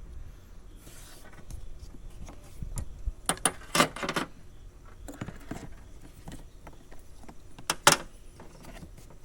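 Parts and tools being handled during a wiper assembly repair: scattered clinks and knocks, a cluster of them about three to four seconds in and a sharp double clink near the end.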